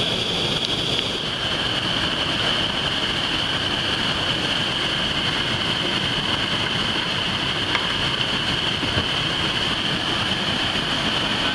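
Whitewater rushing steadily over a waterfall and boulder rapids, a constant loud noise of churning water.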